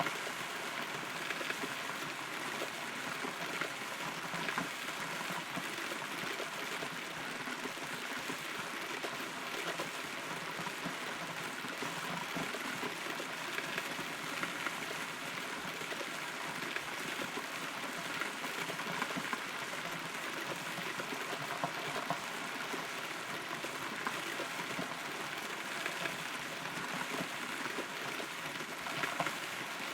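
Steady rain heard from inside a hollow rotten tree trunk, a constant patter with scattered individual drops ticking close by.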